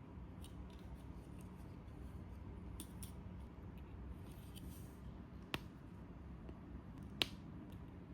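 Small plastic clicks and snips from snap-fit model kit parts being handled, with two sharper snaps about two thirds and nine tenths of the way through.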